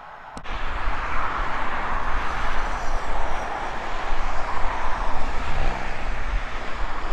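A sharp click about half a second in, then a loud, steady rushing roar with a low rumble underneath.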